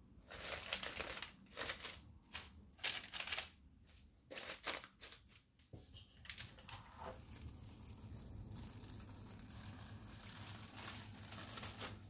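Plastic cling film crinkling as hands press it down and tuck it around a parchment-lined pan of dough balls. It comes in a run of sharp crackly bursts over the first five seconds, then settles into a softer, steadier rustle.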